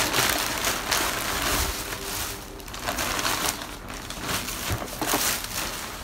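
Parcel packaging rustling and crinkling as it is handled, in uneven handfuls with short gaps.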